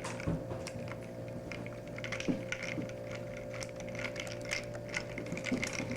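Scattered light clicks and taps of small objects being handled, irregular, over a steady electrical hum.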